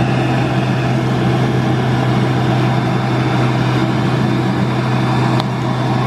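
Electric wall-mounted hand dryer running: a steady rush of air over a low motor hum.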